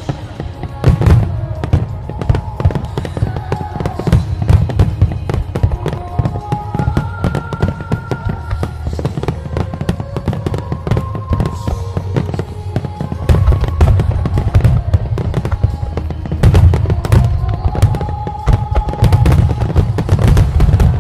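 Fireworks going off in rapid succession, a dense run of sharp bangs and crackles with deep booms, heaviest in the second half. Music with a slow held melody plays alongside.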